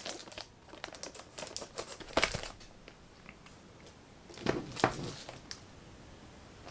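Metal steelbook Blu-ray cases being handled and shuffled into order: scattered light clicks and knocks, a few louder ones about two seconds in and around five seconds in.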